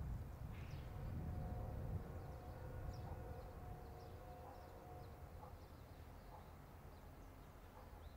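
Faint outdoor background: a low rumble with a faint steady hum in the middle that fades out a few seconds in, and a few small high chirps.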